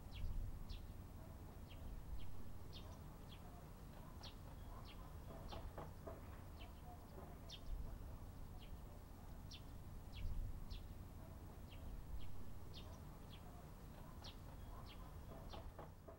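Small bird chirping over and over, short sharp chirps about two a second, over a steady low background rumble.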